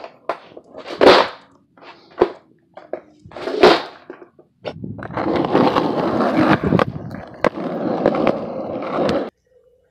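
Skateboard on a hardwood floor: a string of knocks and clacks from the deck and wheels hitting the wood, two of them loud, then a few seconds of wheels rolling with a steady rumble and a few sharp clicks, which cuts off suddenly near the end.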